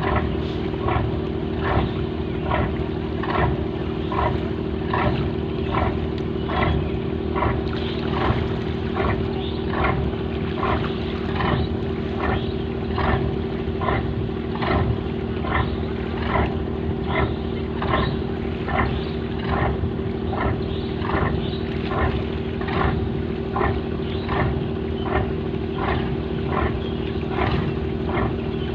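Fishing boat's diesel engine running steadily with a rhythmic chug, a little under two beats a second, over a constant low drone.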